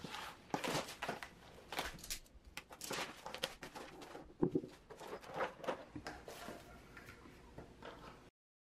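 Clear plastic shrink wrap crinkling and rustling as it is pulled off a flat-pack table's boards, with a few light knocks of the parts being handled. The sound cuts off abruptly near the end.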